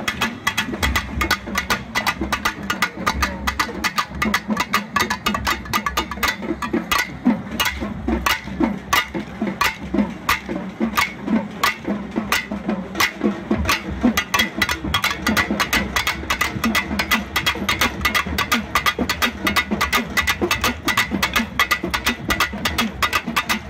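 Barrel drums beaten in a steady festive rhythm, with quick, sharp clacks of the kolattam dancers' short sticks striking against each other.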